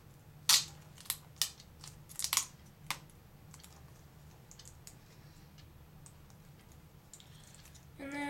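A quick run of sharp clicks and crackles from fingers working at the tape and cable connector on the back of a laptop LCD panel, about half a dozen in the first three seconds, then only faint ticks. A voice begins right at the end.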